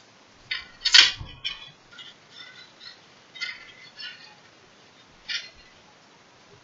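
Coils of a metal flow ring (a one-piece spring toy) clinking and jingling against each other as its loops are pulled open by hand. The loudest clink, with a dull knock, comes about a second in; lighter clinks follow, and one more comes near the end.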